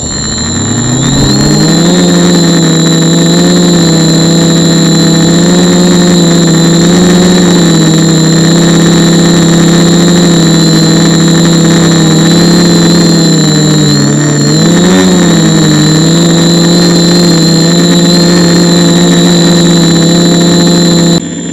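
Small quadcopter's electric motors and propellers spooling up, then holding a loud, steady buzzing hum in flight, heard close from a camera mounted on the drone. The pitch dips and rises once about two-thirds of the way through, a thin high whine runs above it, and it cuts off abruptly near the end.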